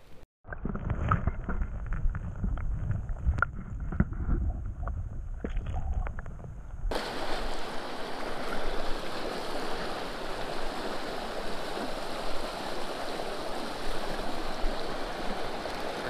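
Low rumbling with scattered clicks and knocks, then, cutting in suddenly about seven seconds in, a shallow creek riffle rushing over rocks in a steady, even rush of water.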